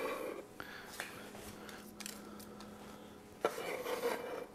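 Chef's knife scraping habanero seeds and scraps across a cutting board: scraping at the start and again near the end, with a few light knocks of the blade in between.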